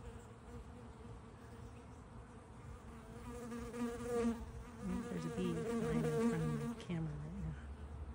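Honey bees buzzing as they fly around their hive entrances. From about three seconds in the hum grows louder as bees pass close by, rising and falling in pitch.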